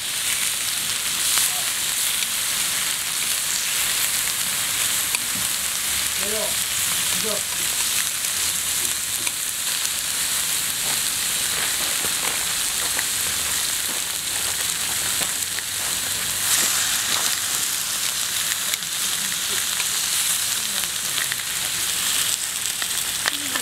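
Raw pork slices sizzling steadily on a hot flat griddle, a dense hiss with fine spitting crackles as more pieces go down.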